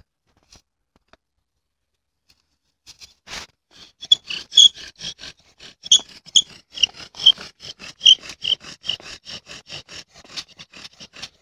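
Improvised bow drill being sawed back and forth: a quick, even run of squeaks, about four to five strokes a second, starting after a single knock. The shoelace cord is slipping around the spindle instead of turning it, so it will not catch.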